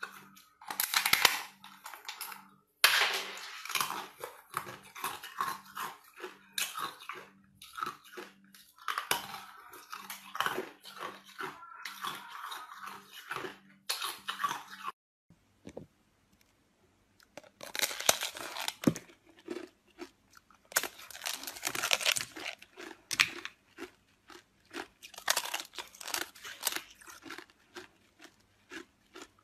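Ice cubes being bitten and chewed close to the microphone: loud, crisp crunches in quick irregular trains. Halfway through, the crunching stops for about two seconds, then starts again.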